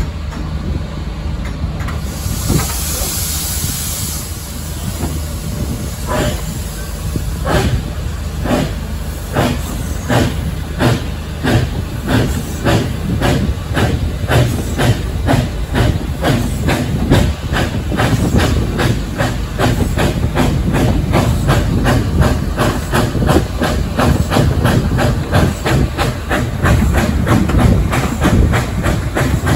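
Steam train pulling away: a burst of steam hiss, then regular exhaust beats that come steadily faster as the train gathers speed, over a low running rumble.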